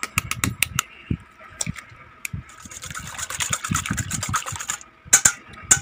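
Kitchen utensil clicking and scraping against a bowl during food prep: a run of quick taps, then about two seconds of fast steady scraping, with two sharp knocks near the end.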